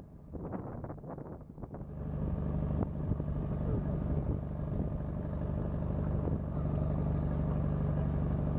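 Engine of the vehicle pulling an open wooden wagon, running steadily with a low, even hum; it becomes much louder about two seconds in.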